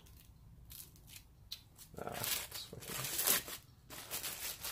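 Plastic wrapping on a new connecting rod rustling and crinkling as it is handled, with a few light clicks at first, then a denser stretch of crinkling from about two seconds in.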